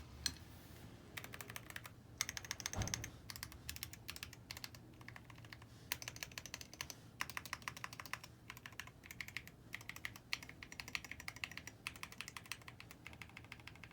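Typing on a 40% mechanical keyboard with Ajazz Banana switches, a brass plate and a CNC aluminium case, in quick bursts of keystrokes broken by short pauses. The brass plate gives the clack a high pitch.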